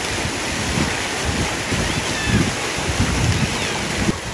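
Wind buffeting the microphone in irregular low gusts over a steady rush of water pouring down an open water slide.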